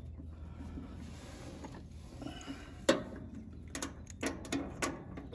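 Sharp clicks and light taps of hand tools on the metal parts of an air conditioning unit being reassembled: one loud click about three seconds in, then a run of smaller clicks near the end.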